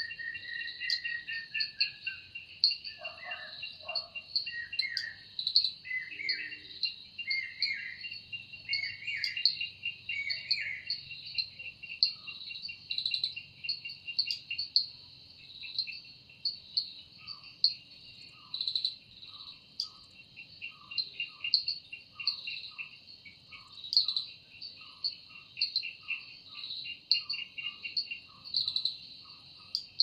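A dense, high-pitched insect chorus with fast pulsing trills, which the uploader takes for cicadas. Birds call over it with gliding and chirping notes for the first ten seconds or so. From a little past the middle, a short lower note repeats about once a second.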